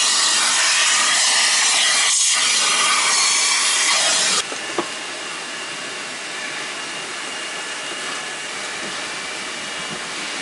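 Self-service car-wash vacuum nozzle sucking at the car's floor, a loud steady hissing rush that dips briefly about two seconds in as the nozzle presses against the carpet. About four seconds in it drops abruptly to a much quieter steady hiss.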